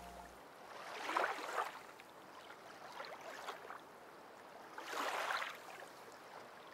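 Faint sea waves lapping, a soft wash of water swelling and falling back about every two seconds.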